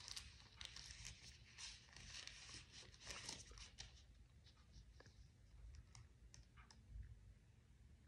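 Faint rustling and soft ticks of thin Bible pages being handled, denser in the first few seconds, then only a few scattered clicks.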